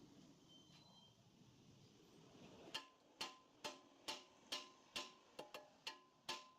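Metal being struck with a hammer, about ten sharp blows at roughly two a second starting about three seconds in, each leaving a short metallic ring.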